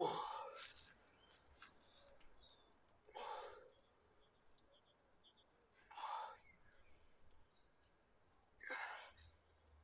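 A man breathing out hard through the mouth with each slow resistance-band pull, four breaths roughly three seconds apart, the first the loudest. Faint birdsong behind.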